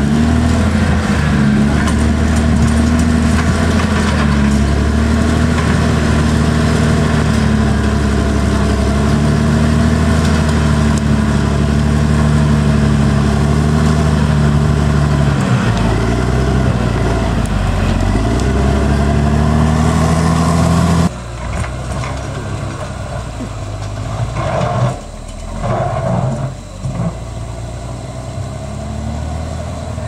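Caterpillar D6R XL bulldozer's diesel engine running loud and steady under load as it pushes rocky soil, its pitch sagging and recovering about halfway through. About two-thirds of the way in, the sound drops abruptly to a quieter, more distant engine.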